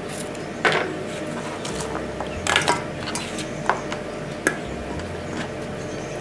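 A few sharp knocks and clinks of a small kitchen knife and a stainless steel bowl on a wooden cutting board as bell pepper strips are trimmed and gathered into the bowl, over a steady low background noise.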